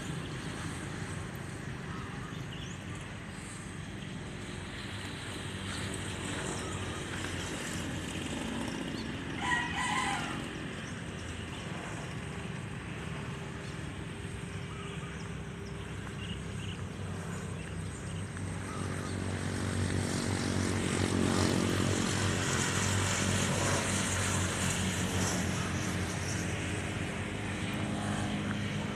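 A distant engine hums steadily and grows louder about twenty seconds in, and a rooster crows briefly about ten seconds in.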